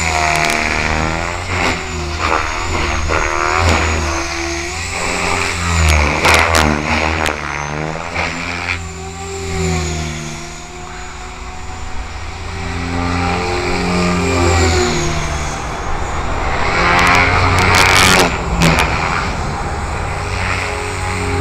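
Align T-rex 550 electric RC helicopter flying aerobatics: the whine of its brushless motor and rotors is heard throughout. The pitch sweeps up and down repeatedly as it flips and rolls, and the level dips briefly about halfway through.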